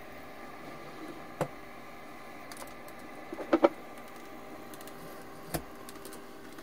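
Small cooling fan of a Cuckoo induction rice cooker running with a steady faint hum, powered up after repair. Over it, the plastic housing being handled gives a few sharp clicks: one about a second in, a louder pair around the middle, and one more near the end.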